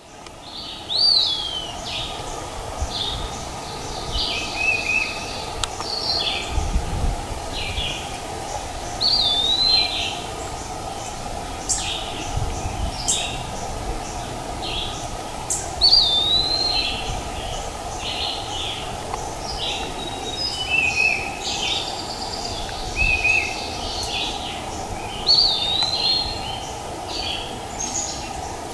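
High animal calls: short chirps and whistled notes that rise and fall, repeating irregularly every second or two over a steady background noise.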